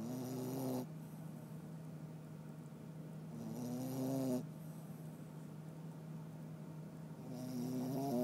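A pet snoring: three pitched snores about four seconds apart, each swelling in loudness and then cutting off abruptly.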